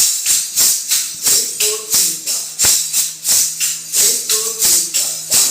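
Lezim jingles clashing in a steady rhythm, about three strokes a second, during a step demonstration, over music with short pitched notes.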